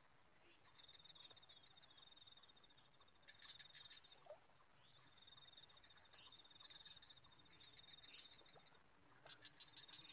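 Faint insects calling: a steady high buzz, with a lower, fast-pulsing trill that sounds in three stretches of a few seconds each.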